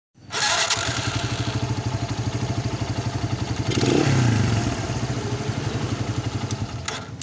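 Small single-cylinder motorcycle engine running with a steady rapid beat, swelling briefly about four seconds in.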